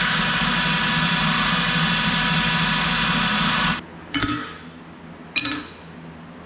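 A steady hissing mechanical noise that cuts off suddenly after nearly four seconds, followed by two short ringing metallic clinks, about a second apart.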